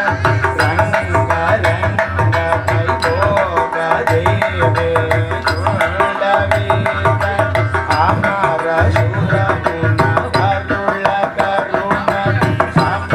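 Live Carnatic-style devotional bhajan music: a group of men singing to a steady, fast rhythm of drum strokes and sharp percussion.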